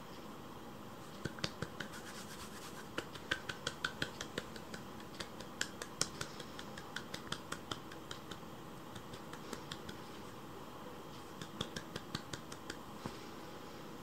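Kittens squirming and grooming one another on a fleece blanket: runs of quick, soft scratchy clicks, about five a second, in a long spell and a shorter one near the end.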